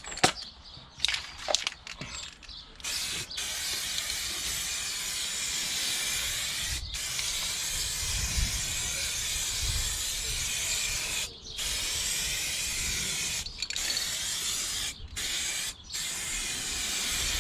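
Aerosol can of white primer spraying onto a steel wheel in long hisses, with brief stops between passes. A few sharp clicks come before the spraying starts, about three seconds in.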